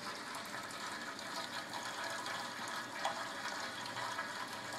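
First runnings of wort trickling from a hose into a stainless keg boil kettle, a thin stream splashing steadily into the pool of wort at the bottom.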